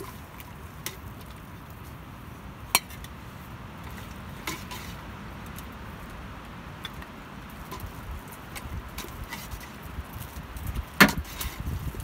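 A metal ladle clinking and knocking against a large metal cooking pot as soup is stirred and ladled out, a few scattered sharp clinks, with the loudest cluster near the end.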